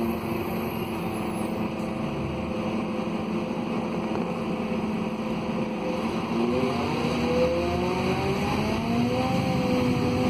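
Scania DC09 five-cylinder Euro 6 diesel and ZF Ecolife automatic gearbox of a Scania K280UB city bus, heard from inside the passenger cabin. The engine holds a steady note, then rises in pitch as the bus accelerates about six seconds in. Near eight seconds the pitch drops as the gearbox shifts up, then climbs again.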